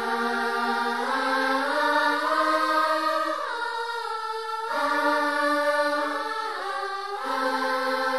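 A young woman singing on her own, slow phrases of long held notes, with short breaks for breath a little under five seconds in and again about seven seconds in.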